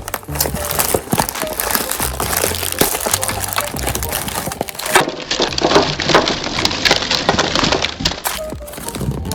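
Meat grinder crushing and crackling through its contents in a dense, irregular run of cracks, over background music with a low bass line.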